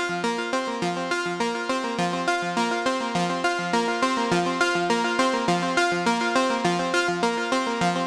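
A Dave Smith Instruments Pro 2 synthesizer playing a looping sequence, a fast run of short pitched notes, fed through a Tegeler Vari Tube Compressor that is compressing it.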